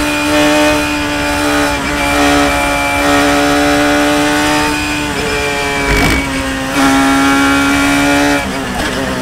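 Onboard sound of a Radical SR3 RSX 1340 sports racer's engine held at high revs in fourth gear under throttle, a steady high engine note with short dips around two and six seconds in. It eases off near the end. Wind rush runs under it.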